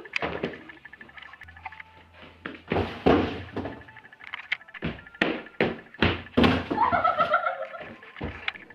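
Irregular thumps and knocks, a dozen or so, from a child moving and flopping about on a floor, with a short wavering tone about seven seconds in.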